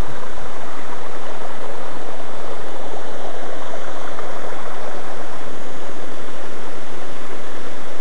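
Shallow forest stream rushing over rocks: a steady, loud, unbroken rush of water.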